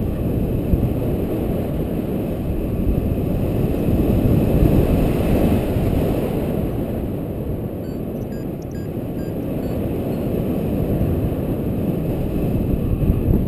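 Wind buffeting the microphone of a camera on a paraglider in flight: a steady low rumble of rushing air, swelling a little about four seconds in and easing off around eight seconds.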